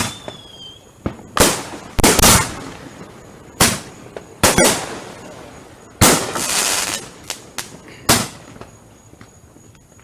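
Consumer fireworks going off: a string of sharp bangs every second or so, some followed by a crackling tail, with a brief falling whistle at the start.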